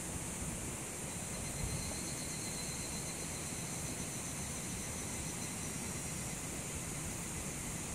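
A chorus of cicadas makes a steady high-pitched hiss, with a faint thin tone rising briefly out of it a couple of seconds in, over a low rumble.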